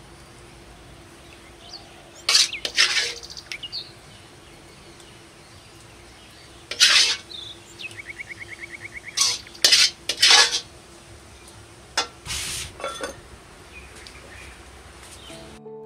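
Metal kitchen utensils clinking and scraping against cookware in four short bouts, with a quick run of light ticks near the middle, over a faint steady hum.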